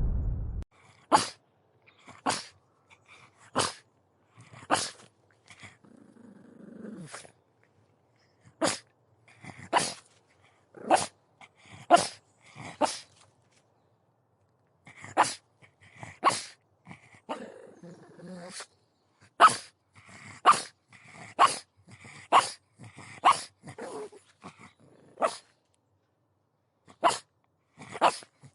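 Pug barking: short, sharp single barks, about one a second with a brief pause midway, and a low growl twice in between.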